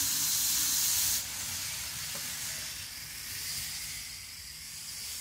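Micro Ace N-gauge model of the JR Kyushu 783 series running along the track: a steady hiss that drops sharply about a second in as the train moves away, then fades.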